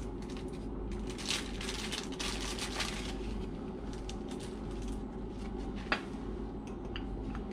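Rustling and crinkling of plastic wrapping and paper towel as diesel fuel filter parts are handled, with a sharp click about six seconds in, over a steady low hum.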